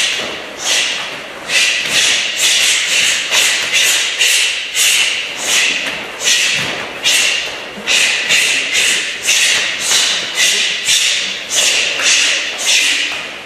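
Karate kicking drill: a rapid series of sharp swishing snaps from cotton karate gis as the kicks are thrown, about two a second, each with a short echoing tail.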